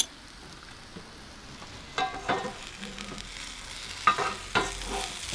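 Couscous and egg patties sizzling in oil in a frying pan, with a few short scrapes and clinks of a utensil against the pan about two and four seconds in as they are turned. The sizzling grows louder in the second half.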